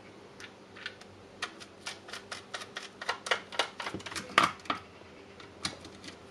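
Hand screwdriver turning small screws into the plastic housing of a Milwaukee M18 battery pack: a run of quick, irregular light clicks from the bit in the screw heads, sparse at first and thickest in the middle.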